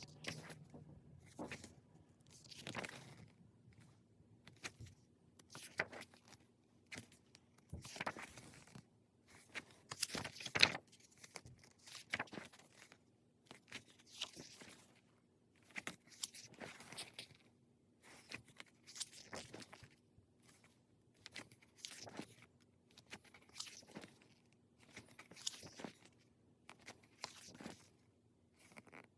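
Glossy paper pages of a K-pop album's photobook being turned one after another, each turn a short rustle, about one every one and a half to two seconds.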